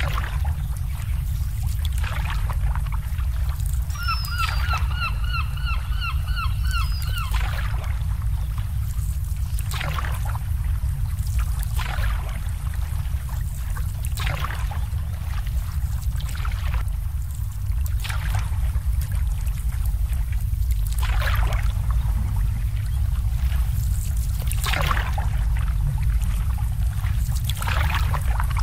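Marina water lapping against moored boats and the dock, a soft splash every couple of seconds over a steady low rumble. About four seconds in, a bird calls for some three seconds in a quick series of repeated notes.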